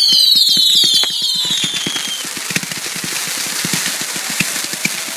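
Consumer fireworks going off: several overlapping whistles falling in pitch over a rapid run of popping for about the first two seconds, then dense crackling and popping.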